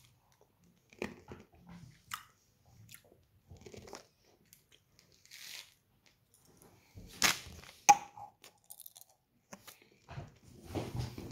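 Candy being chewed and crunched close to the microphone: scattered crunches, two sharp loud clicks about seven and eight seconds in, then denser crunching near the end.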